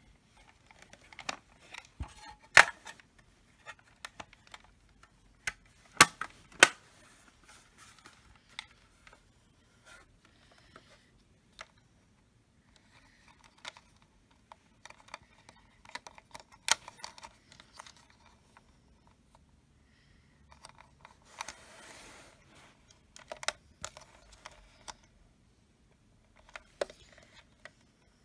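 Handling noise from an EST Genesis speaker strobe's plastic housing and its wires being moved about by hand: scattered clicks and taps, a few of them sharp and loud, and a stretch of rustling about three quarters of the way through.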